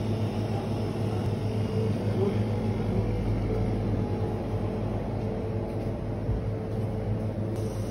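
A steady low hum with a constant background noise, holding at the same level throughout.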